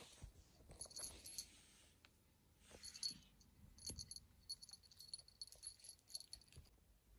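Small bell on a kitten's collar jingling faintly as the kitten plays: a few short jingles, then a longer stretch of jingling in the second half.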